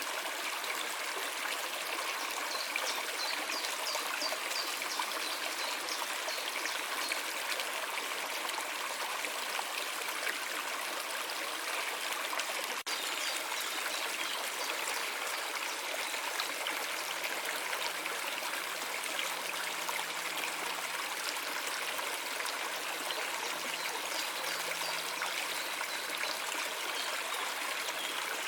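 A stream of water flowing and trickling steadily.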